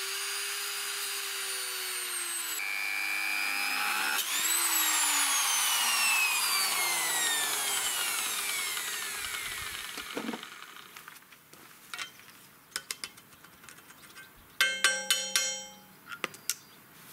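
Angle grinder motor running with a high whine. It revs up again about four seconds in, then is released and spins down, the pitch falling over several seconds. Scattered clicks and a brief mechanical whir follow near the end.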